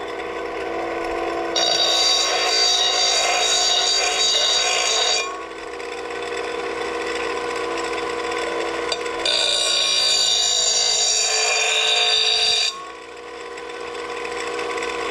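Electric grinder motor running steadily while a steel lawn mower blade is pressed against the wheel twice, each grinding pass lasting about three and a half seconds, to smooth off burrs on the blade's back edge.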